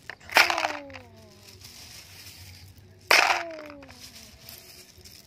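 Handfuls of crushed stone dropped into the hollow plastic bed of a toy dump truck: two sharp clattering hits about three seconds apart, each followed by a ringing tone that slides down in pitch and fades over about a second.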